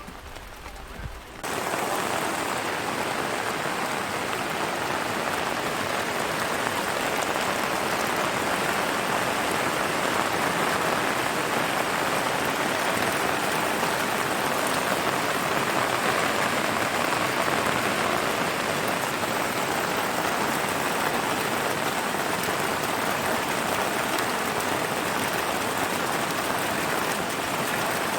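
Heavy rain falling steadily in a dense, even hiss that starts suddenly about a second and a half in.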